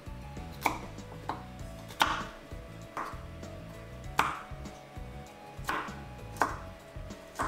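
Kitchen knife chopping on a cutting board: about eight slow, unevenly spaced cuts.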